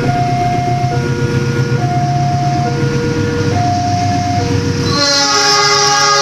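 CC 206 diesel-electric locomotive approaching with a low engine rumble, under a two-note warning tone that alternates about once a second. About five seconds in, the locomotive's multi-note horn starts and holds.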